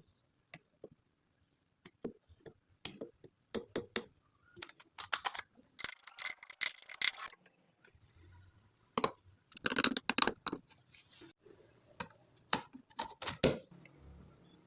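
Irregular clicks, taps and knocks of workshop parts being handled and set in place, with two short scraping bursts about six and ten seconds in.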